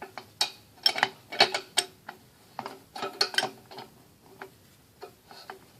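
A wrench working the air-line fitting loose from the compressor's cylinder head: a run of irregular metallic clicks and taps, thinning out over the last couple of seconds.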